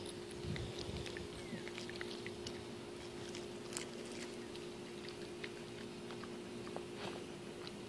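A dog chewing and gnawing on a small object, with scattered irregular small clicks of its teeth, over a steady low hum.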